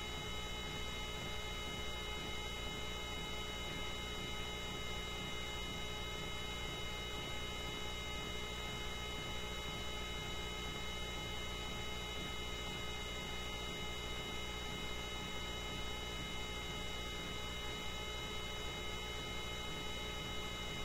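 Coast Guard rescue helicopter running steadily while it hovers: a constant low hum with several fixed high whining tones above it, heard during a basket hoist.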